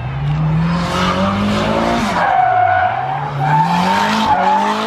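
Drift car's engine revving hard as it slides past, its revs climbing, dropping sharply about two and a half seconds in, then climbing again. The tyres squeal and hiss through the slide.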